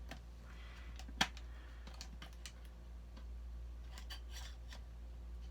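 Small plastic clicks and taps from handling an action figure and fitting a small accessory into its hand, with one sharper click about a second in and further clusters of light clicks later.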